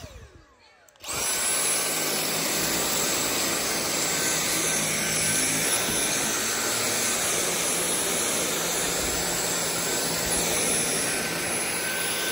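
Dyson V8 cordless stick vacuum: the motor cuts out with a brief falling whine, then starts again about a second in. It then runs steadily with a rush of air and a thin, even whine.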